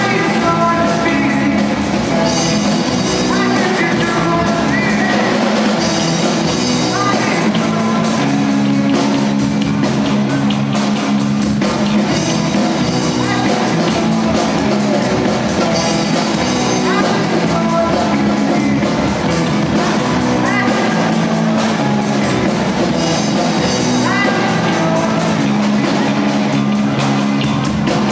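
Amateur rock band playing live: electric guitars, drum kit and keyboard, with vocals over a repeating groove.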